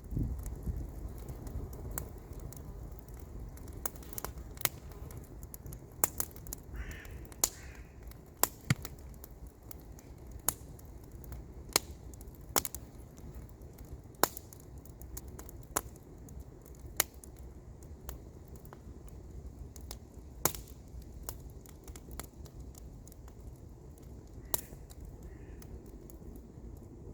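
Campfire crackling: irregular sharp pops and snaps of burning wood over a steady low rumble. A bird calls twice about seven seconds in and twice more near the end.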